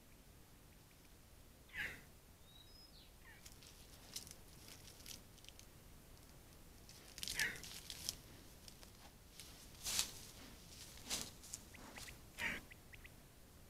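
Roe deer moving through wet grass and mud close by: a handful of short scuffs and rustles from its hooves and body, the loudest bunched toward the second half.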